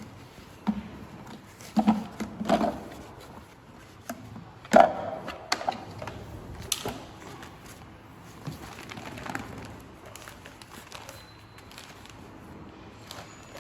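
Irregular knocks and clatter of objects being handled and set down, the loudest about five seconds in, with no motor running.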